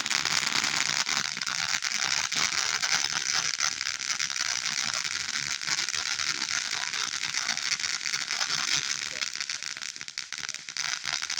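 A firework giving off a dense, continuous crackle: a rapid stream of small sharp pops that keeps up steadily and thins out briefly about ten seconds in.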